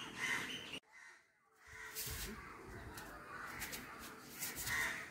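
Crows cawing now and then, with the sound cutting out to near silence for about a second, a second in.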